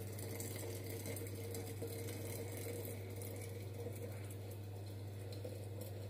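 Boiling water poured from an electric kettle in a thin, steady stream into a glass jar of alder cones, a faint continuous trickle, over a steady low hum.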